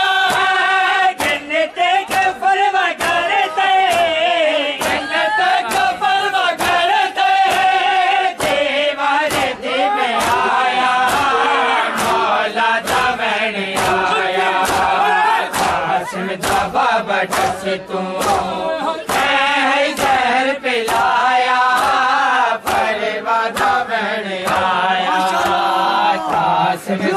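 A group of men chanting a noha lament in unison, with a steady beat of chest-beating (matam) slaps, about two a second, keeping time with the chant.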